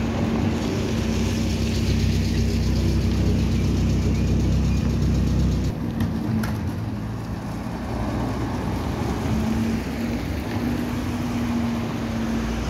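A ZiU-683 articulated trolleybus pulling away and driving off, with a steady electric hum. A loud low rumble over the first half drops off about halfway through, where two sharp clicks sound.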